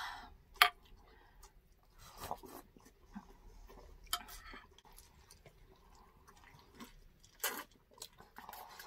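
Close-miked mukbang eating sounds: quiet chewing and mouth noises, with a few short sharp clinks of tableware. The loudest clink comes under a second in.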